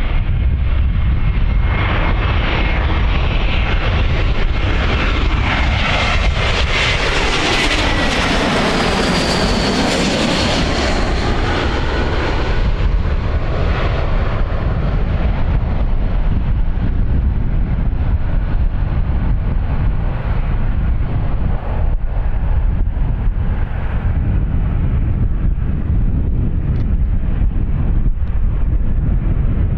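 Vueling Airbus A321 jet airliner on landing approach passing overhead: the jet noise and engine whine swell to a peak about eight to ten seconds in, the whine falling in pitch as it goes past. It then fades into a long rumble.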